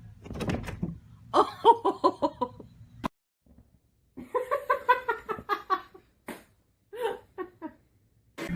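A person laughing in two runs of quick repeated "ha-ha" bursts, one about a second in and another about four seconds in, with a few short clicks between them.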